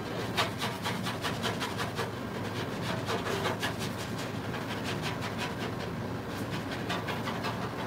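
Bakery workroom sound: a steady machine hum under a quick, uneven run of light clicks and taps, several a second, that thins out in the second half.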